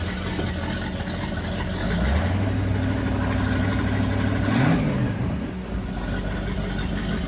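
Rebuilt PCM 350 marine V8 running on fresh fuel through new lines and cleaned carburetors, running the way it should. It idles, is brought up to a higher steady speed about two seconds in, then drops back toward idle around five seconds in.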